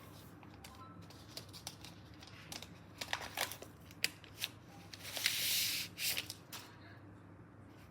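Packaging being handled during an unboxing: scattered light clicks and rustles, then a longer rustle about five seconds in, the loudest sound, followed by a few more clicks.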